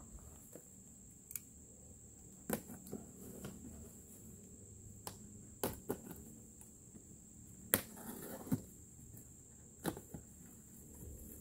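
Cardboard box being opened by hand: scattered rustles, taps and sharp cardboard clicks, the loudest a little before the 8-second mark. A steady high-pitched insect buzz runs underneath.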